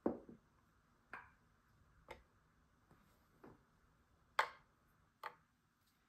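Rubber bike grips and a metal lock-on collar being set down and shifted on the metal platform of a digital tabletop scale: about six sharp clicks and knocks, unevenly spaced, the loudest a little past four seconds in.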